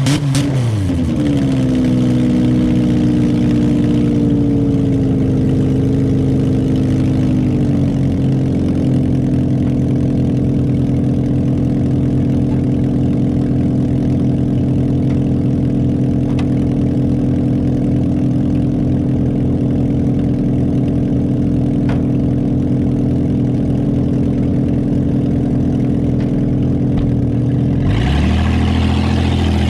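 Saturn car's engine running after a jump start. It drops from high revs to idle in the first second, settles lower in steps over the next several seconds, then idles steadily. It revs briefly near the end.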